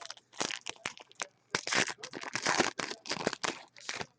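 Foil trading-card pack wrappers crinkling and tearing as hockey card packs are ripped open, with the cards rustling in the hands. Irregular crackles and rustles, thickest from about a second and a half in.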